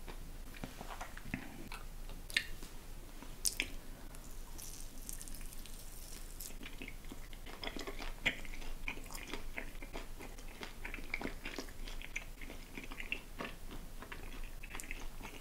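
Close-miked biting and chewing of candy, with scattered sharp clicks and crunches; the loudest snaps come a little over two and three and a half seconds in.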